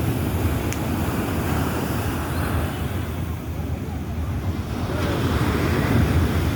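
Sea waves breaking and washing up the beach, with wind buffeting the microphone as a low rumble. The surf swells about two seconds in and again near the end.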